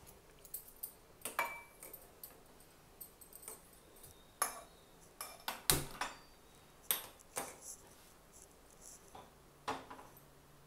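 Metal kadai being handled and set on the gas stove: scattered short clinks and knocks of metal on metal at irregular intervals, the loudest a little past the middle.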